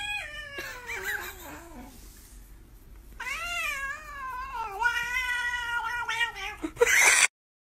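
Domestic tabby cat yowling in two long drawn-out calls: the first slides down in pitch over about two seconds, and the second starts about three seconds in and lasts over three seconds. A brief loud noisy burst comes near the end, and then the sound cuts off abruptly.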